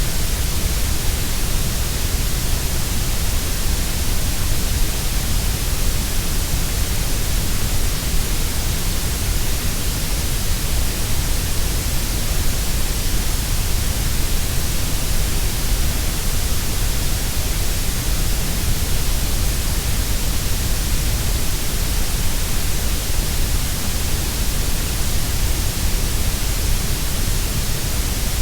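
Grey noise: a steady, unbroken generated hiss, heavy in the deep lows and the high treble and thinner in the middle.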